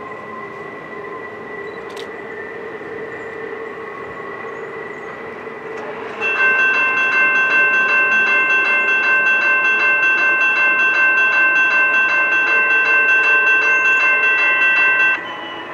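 Norfolk Southern freight locomotive's air horn sounding one long, steady chord for about nine seconds, starting about six seconds in and cutting off sharply. Beneath it is the running of the approaching train.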